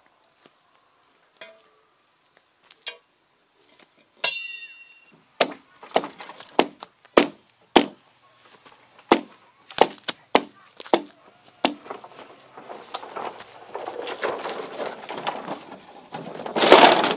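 Green bamboo poles being handled: a ringing knock about four seconds in, then a run of sharp wooden knocks roughly every half second to a second. From about twelve seconds the knocks give way to a longer rustling scrape, as long poles are dragged and lifted through the grass, loudest just before the end.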